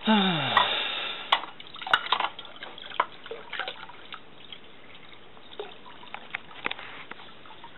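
Water trickling from a bamboo spout into a stone temple purification basin and into a metal ladle, with sharp clinks and knocks of the metal ladles. It opens with a loud, short tone that slides downward over about half a second.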